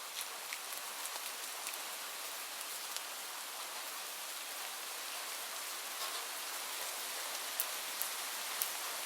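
Light rain falling: a steady hiss of rain with single drops tapping sharply here and there, and a few louder drips near the end.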